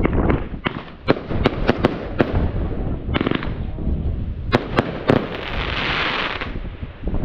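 Fireworks going off: a rapid, irregular string of sharp bangs, with a hissing burst about five and a half seconds in.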